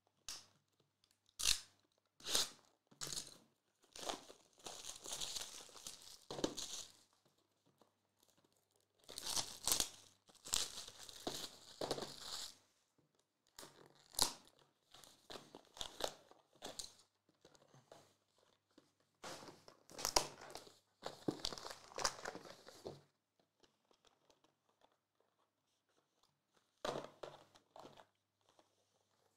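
Plastic shrink wrap being torn and crinkled off sealed trading-card hobby boxes: a few sharp snaps, then several longer stretches of rustling and tearing with quiet pauses between.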